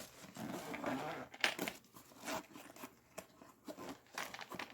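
Zipper on a fabric travel makeup train case being unzipped by hand, a run of short, uneven rasps and clicks with rustling of the case.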